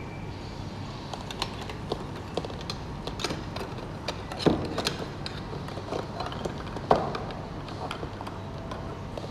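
Scattered light clicks and knocks over a steady low hum, with two louder knocks about four and a half and seven seconds in.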